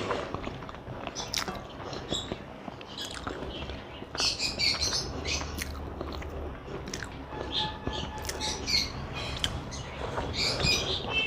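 A person chewing a rice meal close to the microphone, with irregular wet mouth clicks and smacks.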